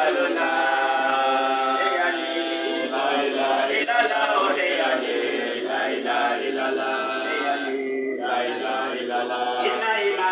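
Devotional Arabic chanting: a voice singing a religious poem in long, held melodic notes.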